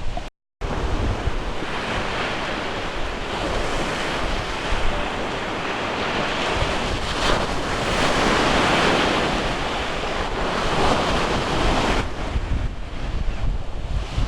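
Sea surf washing onto the shore with wind buffeting the microphone, swelling louder about eight seconds in. A short dropout cuts the sound just after the start.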